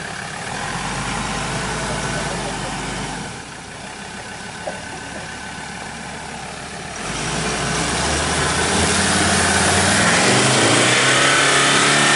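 Ford Ranger Wildtrak pickup's engine working hard in mud with the throttle held open, getting louder about seven seconds in, its revs rising and falling as the truck slips along.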